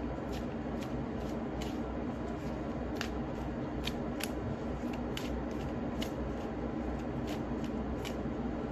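A tarot deck being shuffled and handled: irregular light card snaps and clicks, about two a second, over a steady low room hum.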